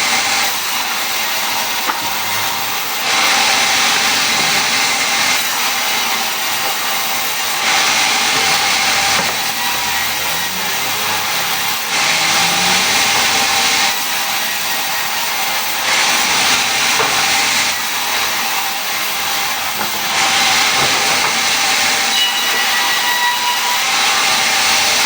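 A power tool working wood, running continuously with a steady whine under a loud hiss. The hiss swells and eases about every four seconds, as if the tool is pushed through the wood in repeated passes.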